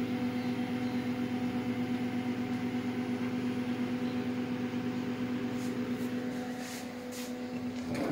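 Microwave oven running while it reheats a plate of food: a steady electrical hum. A few faint clicks come in near the end.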